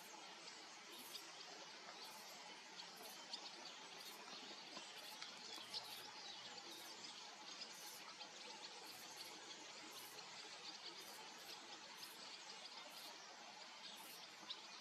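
Near silence: faint, steady outdoor hiss with scattered soft ticks and chirps. The stag is not roaring.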